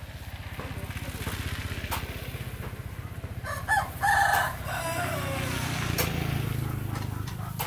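A rooster crows once, about three and a half seconds in, its call falling away at the end. Under it runs a steady low mechanical hum with a fast, even pulse, like a small engine running.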